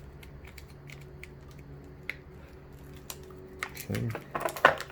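Irregular small plastic clicks and taps from wiring and connectors being handled, with a denser cluster of louder clicks near the end, over a faint steady hum.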